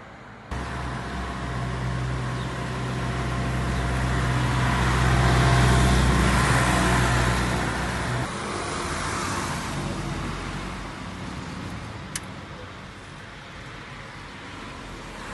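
A motor vehicle passing close by: a low engine hum and tyre hiss grow to a peak about six seconds in, then fade as the engine note drops away. There is a single sharp click near the end.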